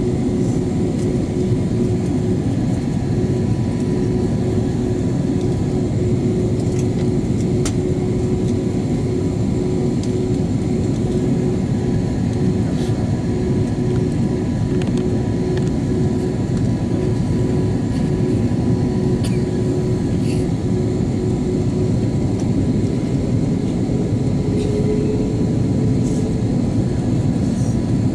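Steady cabin noise inside an Airbus A330-200 in cruise flight: the drone of the jet engines and rushing airflow over the fuselage, heard from a window seat behind the wing. A steady hum within it shifts slightly higher in pitch about three-quarters of the way through.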